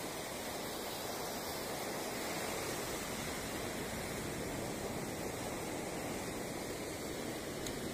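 Steady rush of sea surf breaking and washing up the beach.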